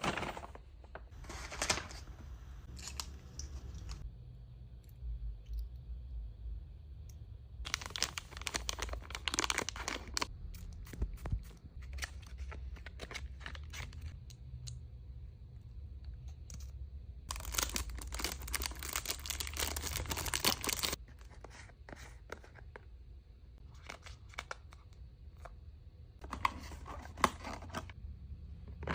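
Product packaging being torn open and crinkled by hand, in four bursts of tearing and rustling with quieter handling between.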